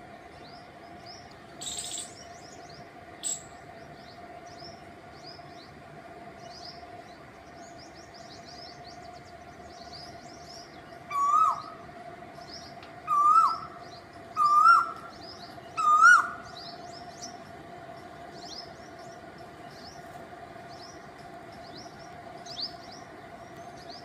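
A cuckoo calling four times in a series, one to two seconds apart, each a single hooked whistled note a little higher than the last. Small birds chirp steadily behind it.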